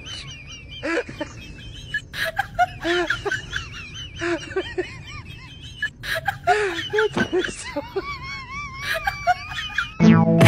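A person laughing and talking, in short rising-and-falling voiced sounds.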